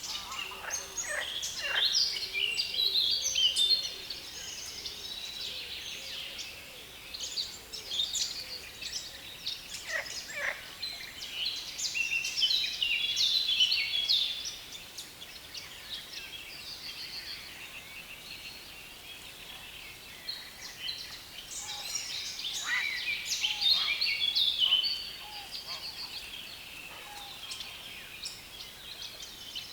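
Reed-bed songbirds singing a harsh, fast chattering song, loudest in three bursts, at the start, around the middle and past two-thirds through, with quieter song between.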